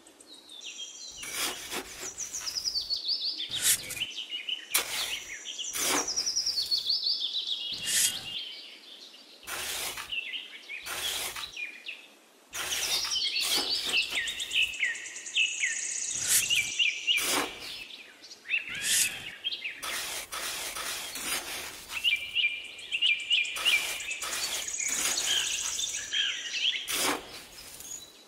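Small metal hand trowel digging and scraping damp sand in repeated short strokes, while birds chirp in quick runs of falling notes.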